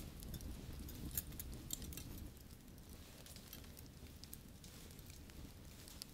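Metal double-pointed knitting needles clicking lightly against each other as wool is knitted in the round: faint, irregular small clicks, more frequent in the first couple of seconds.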